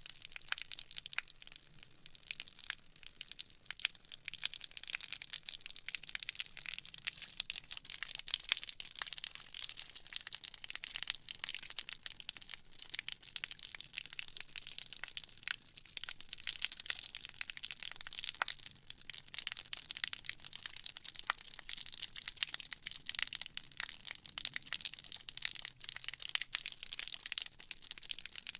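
Water from a garden hose spraying onto concrete: a steady, hissing spatter full of fine crackles.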